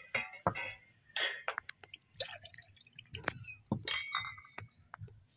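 Steel spoon clinking and scraping against a small clay pot while stirring vegetables in water: a run of irregular clinks and light knocks, a couple of them ringing briefly, with a little splashing of the liquid.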